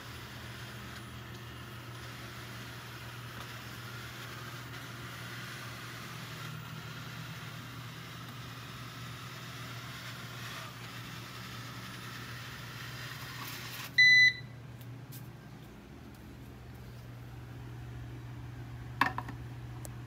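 Coredy R750 robot vacuum running, a steady whir of its suction and brushes over a low hum. About two-thirds of the way in it gives one loud short beep and the suction noise stops, as it reaches its charging dock. A low hum carries on, with a short click near the end.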